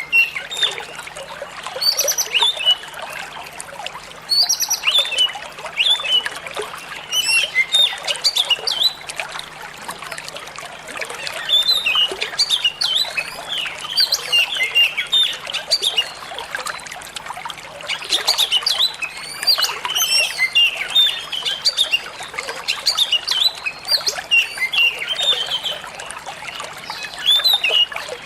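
An Oriental magpie-robin (kacer) singing a long, varied run of rapid chirps, whistles and harsh notes over the steady sound of trickling water.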